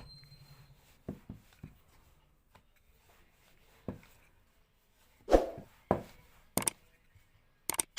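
Scattered knocks and taps of a rolling pin and board as potato dough is rolled out, about eight in all; the loudest is a knock about five seconds in.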